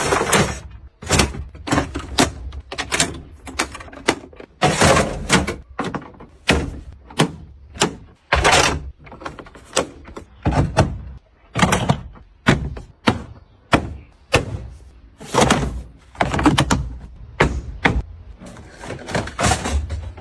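An irregular series of sharp knocks and thunks, about one or two a second: hands-on work with tools on a car being restored.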